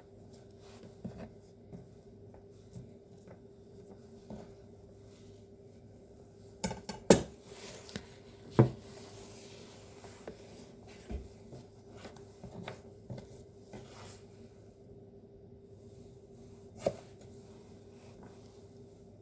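Kitchen knife on a cutting board while carrots are cut into small diamond shapes: light taps and scrapes, a few louder knocks midway and one near the end, over a faint steady hum.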